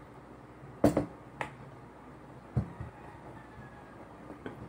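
A few sparse, light knocks and clicks of dishes and a pot being handled at a meal table: the sharpest about a second in, a duller thump about halfway, and a small click near the end.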